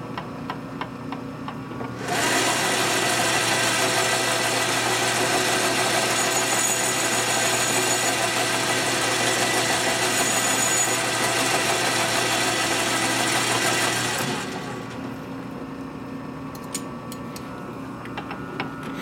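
An electric shop machine or power tool switches on about two seconds in, runs steadily and loudly for about twelve seconds, then winds down.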